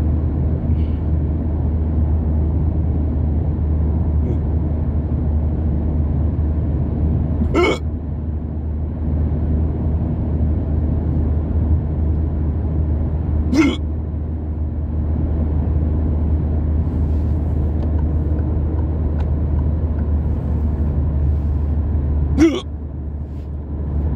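A person hiccuping three times, about six and then nine seconds apart, each a short sharp hic. Underneath is the steady low rumble of a car, heard from inside the cabin.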